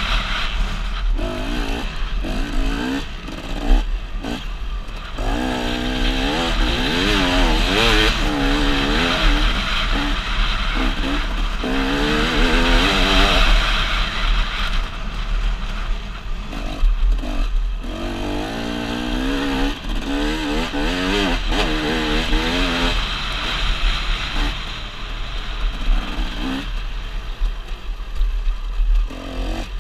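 Motocross bike engine revving up and easing off in repeated rising sweeps as the rider accelerates along the track, heard from the rider's helmet over a steady low rumble.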